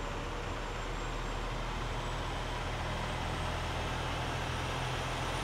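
Semi truck's diesel engine running steadily as the tractor-trailer drives slowly through shallow floodwater on the road, its tyres sloshing through the water. The sound grows slightly louder as it comes closer.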